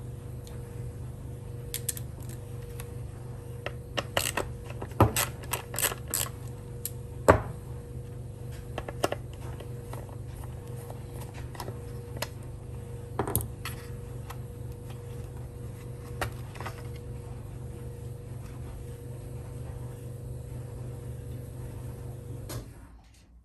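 Scattered light clicks and knocks of hand tools and plastic parts as a car wing mirror indicator is unscrewed and removed, most frequent for a few seconds early on and then occasional. Under them a steady low hum runs and cuts off suddenly near the end.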